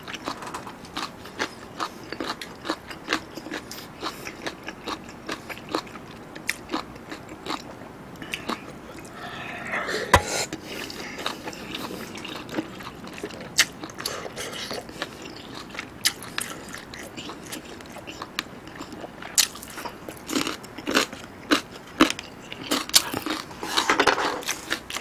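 Close-miked eating sounds: a person chewing a mouthful of beef and noodles from a hot pot, with many short wet crunches and mouth clicks and one louder click about ten seconds in.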